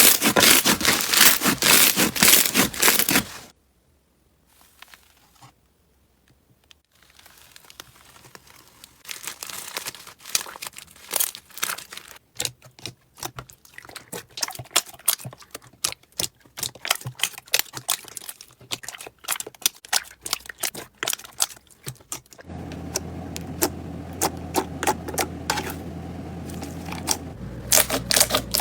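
Crunchy slime being squeezed and pressed, with dense crackling and popping at first, then, after a short near-silent pause, sparser crackles and pops. In the last several seconds a steady low hum runs under the crackles.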